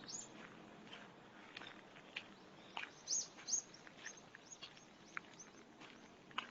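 Birds giving faint, short, high chirps, a dozen or so scattered through, with two louder ones about three seconds in.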